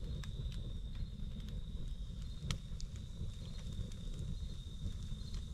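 Campfire burning: scattered sharp crackles and pops over a steady low roar, with a continuous high, thin insect trill behind it.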